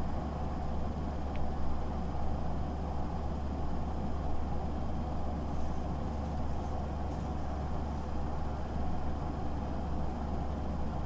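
Steady low rumbling hum with no distinct events.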